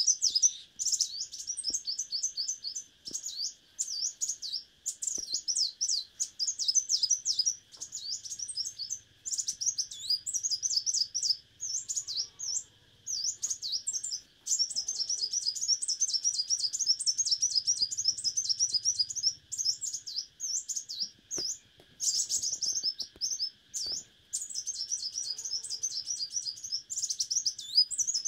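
Leafbird song: fast, near-continuous runs of high chirping and whistled notes with short pauses, the song of a caged decoy used to lure a wild leafbird. A steady high hiss runs underneath.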